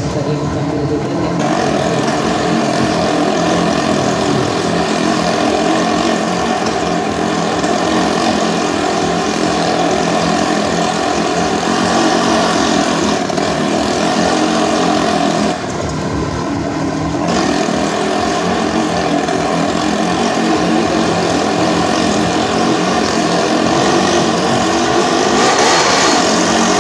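Motorcycle engine running hard at steady, high revs as it circles the vertical wall of a wall-of-death barrel, the sound enclosed by the drum.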